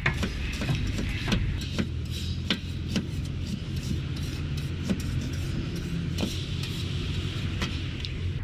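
Large kitchen knife chopping on a cutting board and griddle: irregular sharp knocks, about one or two a second, over a steady low rumble of street traffic.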